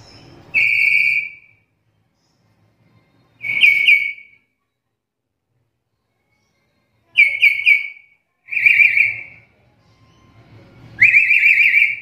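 Black-capped lory giving loud, whistled calls in five bouts: some a single held note, others runs of two or three quick warbling notes, the last one rising at its start.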